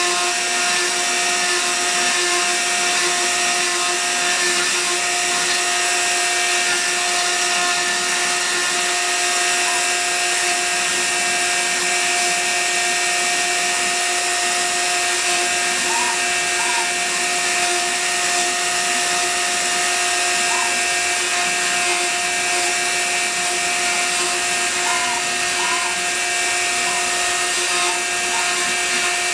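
Hobby CNC router running steadily while carving, its spindle giving a constant whine over a noisy hiss.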